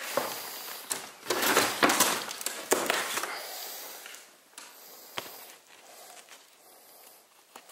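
Footsteps with crackling and crunching underfoot, loudest in a cluster a second or so in, then thinning to softer, scattered steps.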